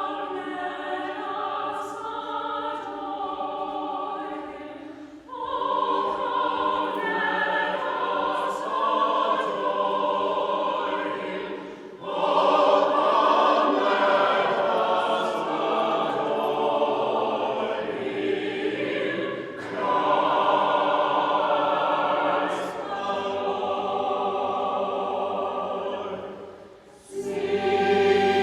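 A choir singing sacred music in harmony, in long phrases with brief breaks between them.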